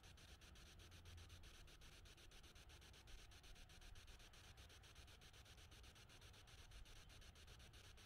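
Near silence: only a faint low rumble of background noise.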